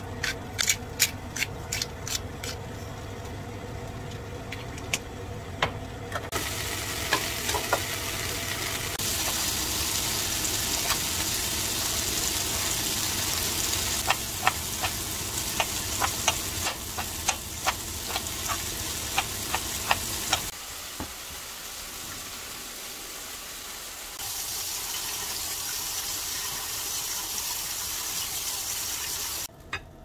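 Pepper grinder clicking over the pan, then sliced mushrooms and vegetables sizzling as they are stir-fried in a frying pan. In the middle, a kitchen knife strikes a cutting board in quick chops, mincing green onion.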